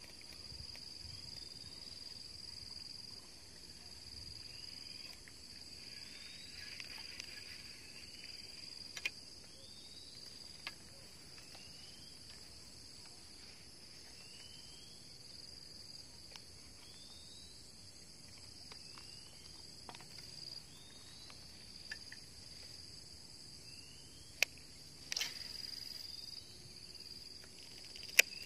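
Rural insect chorus: crickets giving a steady high-pitched buzz, with a short rising chirp repeated about once a second. A few sharp clicks cut in, the loudest near the end.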